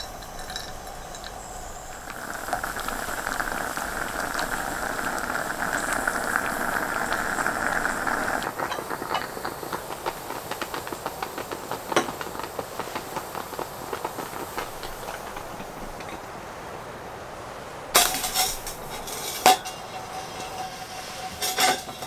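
Stovetop moka pot gurgling and hissing as the coffee comes up, thinning after about eight seconds into scattered crackles and spits. Near the end come a few metal clinks as a steel cup is handled on the hot plate.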